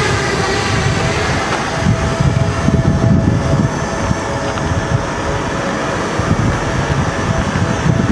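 Parrot Bebop 2 quadcopter in flight, its propellers humming steadily, over a gusty low rumble of wind on the microphone.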